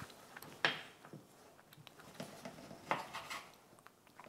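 Knife cutting pieces of dried biltong on a wooden cutting board, with scattered knocks of the blade on the board, the two loudest about half a second in and near three seconds in.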